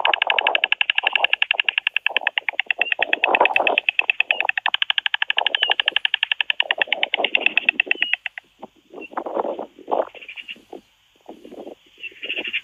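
White stork clattering its bill, a rapid, even wooden rattle that stops about eight seconds in. After it come irregular rustling whooshes as the stork flaps its wings on the nest.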